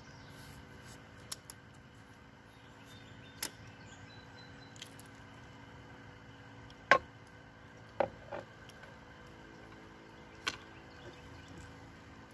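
A handful of sharp clicks and taps from fishing tackle being handled in a canoe, the loudest about seven seconds in and two more close together about a second later.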